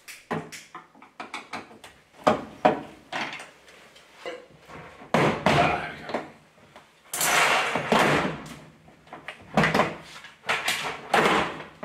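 A plastic car door card being pulled off its door: trim clips pop free among a run of sharp clicks and knocks, with louder bursts of plastic scraping and rattling about five seconds in, from about seven to nine seconds, and near the end.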